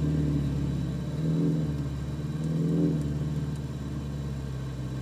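Ferrari 488 Pista's twin-turbo V8 running at low revs, heard from inside the cabin, swelling briefly three times under light throttle as the car creeps forward.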